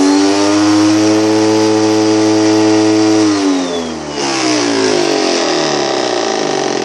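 Bissell PowerForce upright vacuum cleaner's motor running loud and harsh, sounding like a chainsaw or moped. It holds a steady pitch, then drops in pitch about three and a half seconds in and carries on lower and rougher; the owner takes the vacuum to be broken.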